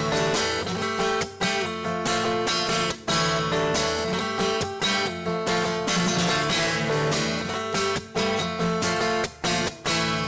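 Acoustic guitar being strummed, played live, with a few brief breaks between chords.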